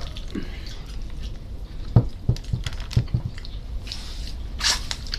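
Chewing and wet squishing of roast chicken being eaten, with a run of soft low thumps about halfway through and a brief rustle near the end.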